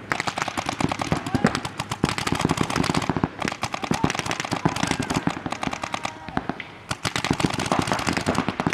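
Paintball markers firing rapid strings of shots from several players at once, many pops a second, slackening briefly about seven seconds in.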